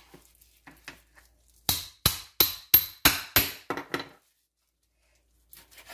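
Meat cleaver chopping raw chicken on a plastic cutting board: about seven sharp chops, roughly three a second, starting near two seconds in.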